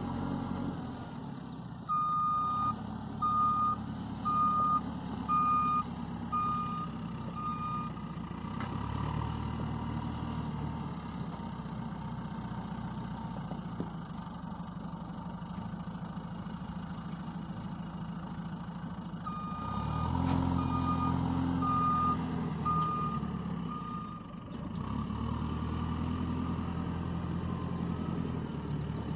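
JCB 3DX backhoe loader's diesel engine running and revving up at times, with two runs of its reversing alarm beeping about once a second.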